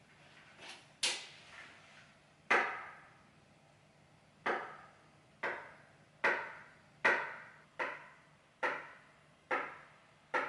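Slow, unevenly spaced knocks on wood, about ten of them, each with a short ringing tail.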